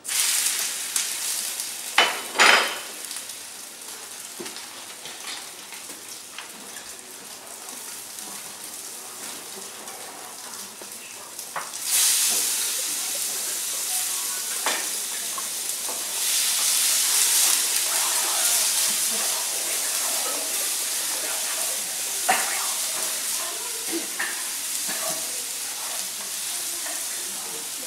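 Food sizzling in a hot frying pan as it is stir-fried with a wooden spatula. The sizzle starts suddenly as the food goes into the pan, two sharp knocks come about two seconds in, and the sizzle grows louder about twelve seconds in, with light scrapes and taps of the spatula throughout.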